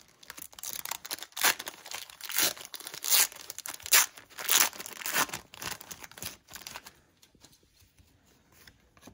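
A 1990 NFL Pro Set trading-card pack wrapper being torn open and crinkled by hand, a quick series of sharp rips and rustles for about seven seconds, then only faint rustling as the cards come out.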